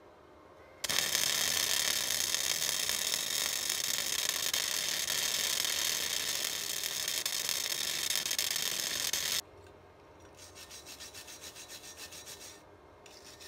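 Stick arc welder striking an arc about a second in and running with a steady crackling hiss for about eight and a half seconds as a weld is laid on steel bar stock, then cutting off sharply. After a short pause, a wire brush scrubs the fresh weld in rapid back-and-forth strokes.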